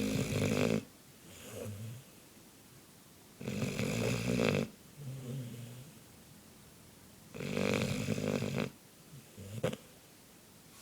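Black Labrador dog snoring in its sleep. There is a loud snore about every four seconds, each lasting just over a second, and each is followed by a quieter, shorter breath.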